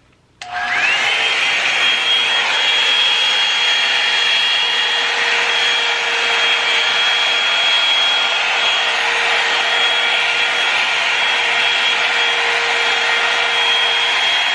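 Revlon One-Step hot-air brush dryer switching on about half a second in: its motor whine rises quickly, then runs steady with a loud rush of air.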